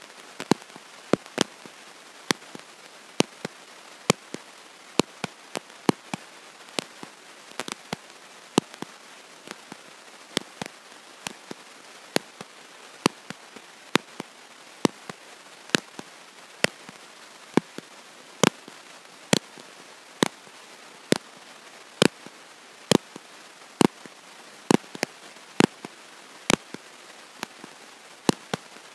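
Sharp clicks, irregularly one to two a second, over a steady hiss, with no voice coming through: a faulty audio recording.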